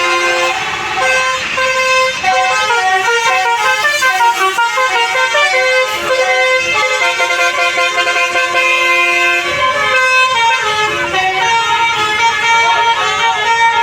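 A bus's telolet basuri musical horn playing a tune of quickly changing notes, with no break.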